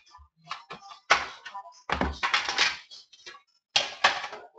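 Knocks, taps and scraping from a trading-card box and its packaging being handled and opened by hand. There are separate sharp clatters about a second in, a busier cluster around two seconds, and another near the end.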